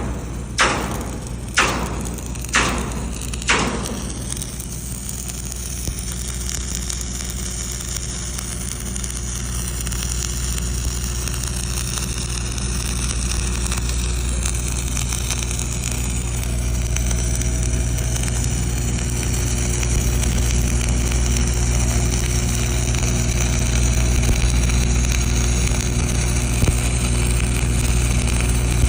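A few sharp knocks about once a second, then a flux-core wire-feed welding arc crackling and hissing steadily over a steady low hum, growing slightly louder as the weld runs on.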